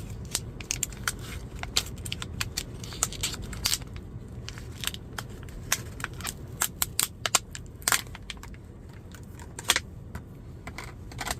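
Irregular crackling and sharp clicks of packaging being handled and torn open to get a ratcheting screwdriver out, over a steady low rumble.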